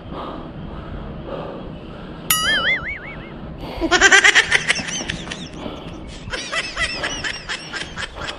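A sudden warbling, wobbling tone about two seconds in, followed by high-pitched laughter, loudest around the middle and returning near the end.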